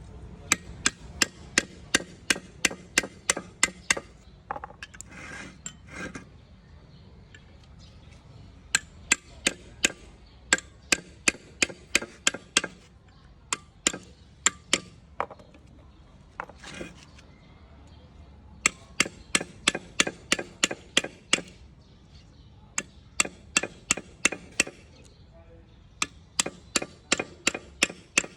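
Hammer striking in quick runs of about a dozen sharp blows, roughly three or four a second, with short pauses between runs: cutting the old copper windings out of an electric motor's stator.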